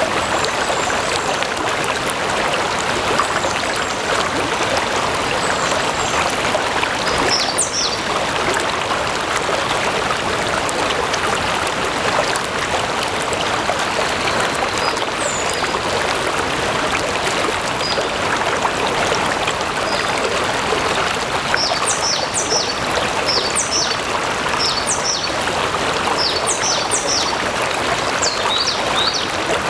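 Stream water flowing steadily. Short high chirps come about seven seconds in and cluster through the last third.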